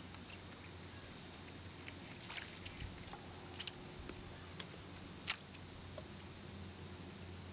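Fishing rod and reel being worked during a retrieve: a few short, sharp clicks, the loudest a little over five seconds in, over a faint steady low hum.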